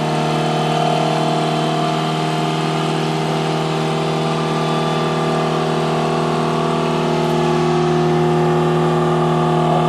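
Gasoline engine of a towable boom lift running steadily under load while the boom is driven up from the basket controls, a constant hum that swells slightly near the end.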